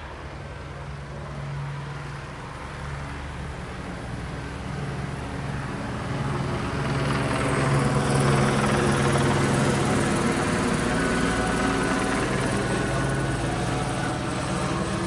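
Police helicopter circling overhead, its rotor and engine a steady low drone that grows louder about halfway through as it comes closer, then eases slightly.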